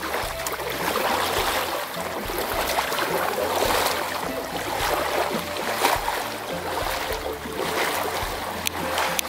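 Double-bladed kayak paddle dipping and splashing in shallow water, stroke after stroke, as an inflatable SUP board is paddled away, with water lapping around its hull.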